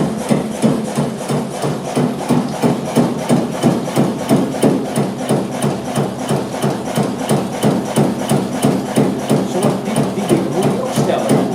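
Kromhout HS2 low-speed single-cylinder diesel stationary engine running steadily. It makes an even, heavy knocking beat at about three strokes a second.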